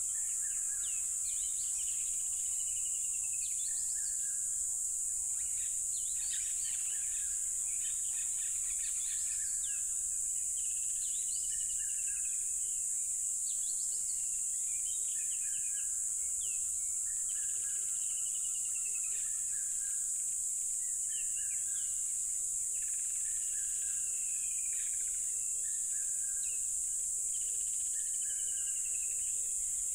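A dense chorus of crickets makes a steady, high-pitched trill without a break. Over it, birds call again and again in short phrases, some with falling whistled notes.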